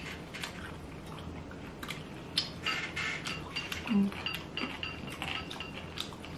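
Close-miked eating of stir-fried rice noodles: scattered clicks of chopsticks and a metal spoon with chewing and mouth sounds, busiest between about two and a half and three and a half seconds in.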